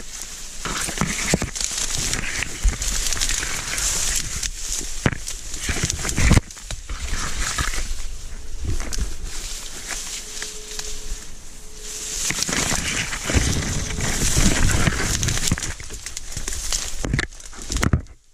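Dry reed stalks rustling, crackling and snapping as a person forces a way through a dense reed bed on foot, the stems scraping against clothing and the camera. The noise breaks off just before the end.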